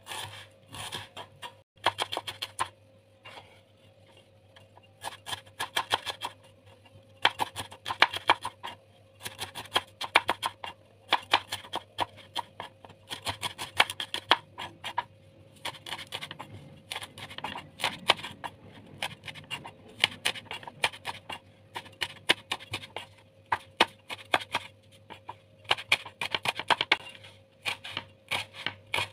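Kitchen knife slicing shallots on a cutting board: quick runs of sharp taps lasting a second or two, with short pauses between.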